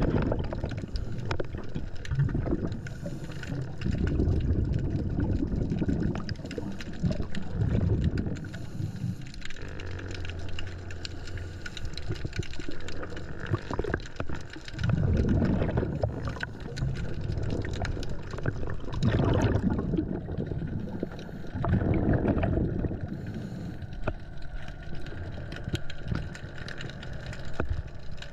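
Scuba diver's exhaled air bubbling out of the regulator in gurgling bursts every few seconds, heard underwater through the camera housing, over a constant faint crackle of clicks.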